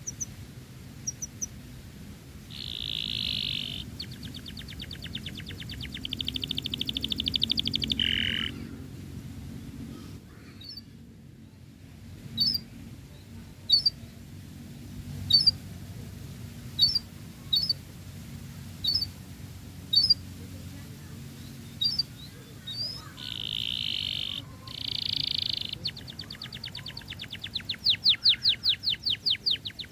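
Domestic canary singing a long, varied song: buzzy held trills, a run of sharp single chip notes in the middle, and fast rolling trills that come back near the end.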